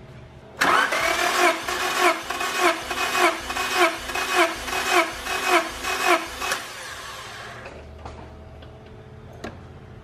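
Honda B16A engine turned over on its starter with the spark plugs out and the main relay unplugged, for a compression test: about six seconds of cranking with a pulse roughly every half second. The cranking then stops and dies away.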